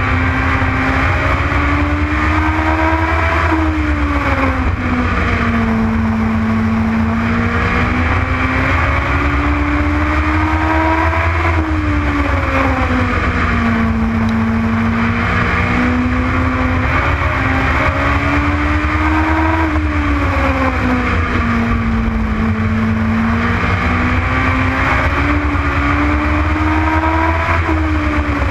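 Legends race car's motorcycle engine at racing speed, its pitch climbing and then dropping back about every eight seconds, four times over: lap after lap of accelerating down the straights and lifting for the turns.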